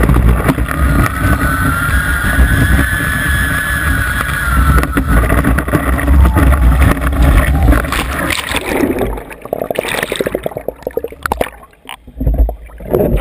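Slalom water ski planing across a lake, heard from a camera on the ski tip: a loud rush of water spray and wind buffeting, with a steady whine for a few seconds about a second in. From about nine seconds the rush falls away into choppy splashing and gurgling as the ski slows and settles, and the lens dips under water near the end.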